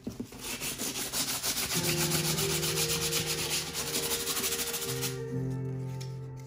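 Sanding block rubbed rapidly back and forth over a dry, textured acrylic-and-oil painted surface, sanding back the paint layers; the strokes die away near the end. Background music with held notes underneath.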